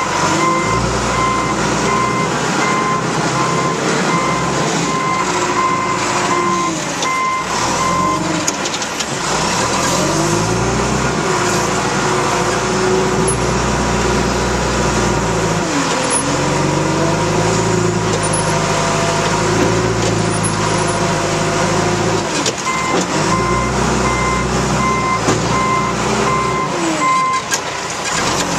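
John Deere 310 loader backhoe's diesel engine running and revving up and down as it works the dirt, with its backup alarm beeping in an even rhythm for the first several seconds and again near the end.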